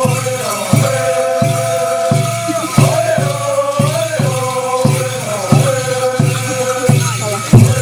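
A group of voices chanting a ceremonial dance song in unison, with shaken rattles and a steady low beat about every 0.7 seconds. A stronger beat lands near the end.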